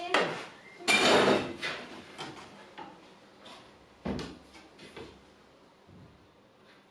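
Handling noise of a track-saw guide rail and wooden crosscut jig on a workbench: a short rough scrape about a second in, a solid knock about four seconds in, then a few lighter knocks as things settle.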